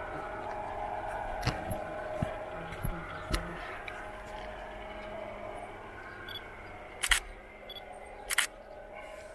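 Camera shutter clicking sharply twice near the end, with a few lighter ticks in the first seconds, over a steady background hum.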